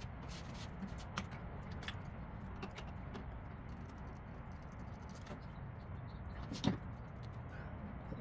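Scattered light clicks and taps of hand tools and loose parts during work on a car's engine bay, as the intake's bolts, hoses and clips are undone. There is one louder knock about two-thirds of the way through, all over a steady low hum.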